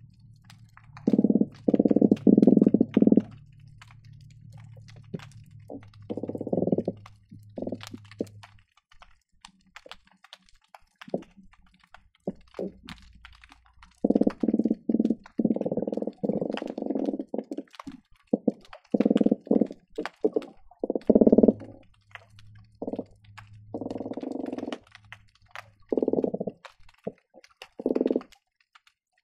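Croakers calling underwater, picked up by hydrophones: loud bursts of rapid, low knocking pulses from the swim bladder, in clusters of a second or two with quiet gaps between. Faint scattered clicks run underneath, with a steady low hum in the first several seconds and again later.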